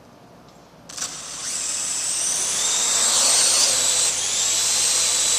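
Parrot AR.Drone's four electric motors and propellers starting about a second in and spinning up into a steady high whine.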